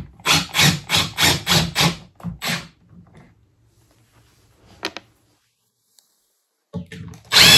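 Cordless drill backing screws out of a ceiling cassette panel, driven in about seven quick pulses over the first couple of seconds. It runs again near the end with a whining motor.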